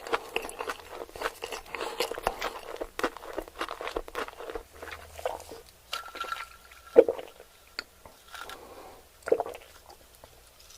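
Close-miked chewing of crunchy fried food: dense crisp crunching for about the first half, then slower chewing with a few sharper single crunches.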